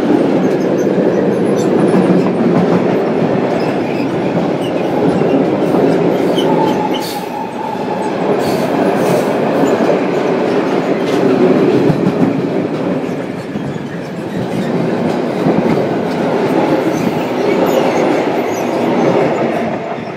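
Freight train of covered wagons rolling past close by: a steady rumble of steel wheels on the rails with clickety-clack over the rail joints. About seven seconds in there is a brief high wheel squeal.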